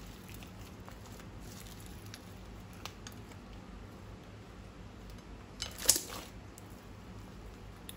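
Scattered small clicks and taps of slime-making materials being handled, with one short, louder crackly burst about six seconds in.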